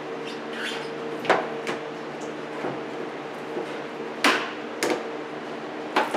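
Hand tools and car parts clicking and knocking as they are handled, five or six sharp knocks at irregular intervals, the loudest about a second in and again past the middle. Under them runs a steady low hum.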